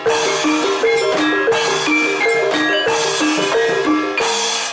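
Javanese gamelan accompaniment for jaranan dancing: metal-keyed instruments struck in a repeating melody over drumming, ending abruptly at the close.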